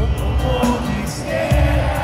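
Live pop-rock band playing, with drums and bass under singing, heard from the stands of a large arena.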